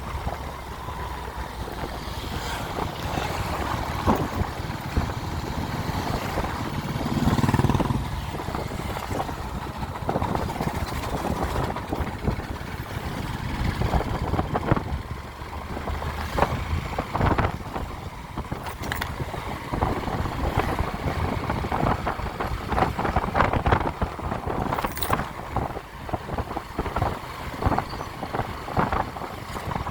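Yamaha FZ motorcycle being ridden, its engine running under way with road noise, with a brief louder swell about seven seconds in.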